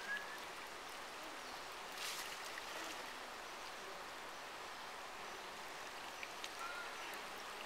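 Shallow river running over rock ledges: a steady rush of flowing water.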